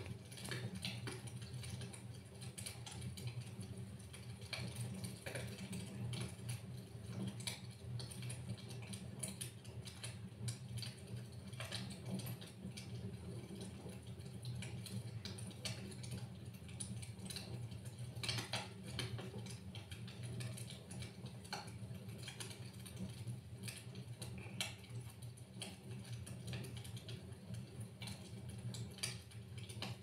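Wood logs burning in a fireplace, crackling and popping irregularly over a steady low rumble.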